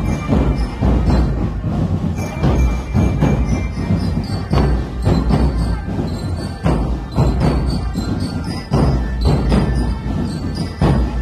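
Military marching drum band playing: a dense, steady beat of bass drums and snare drums, with high ringing bell notes over it.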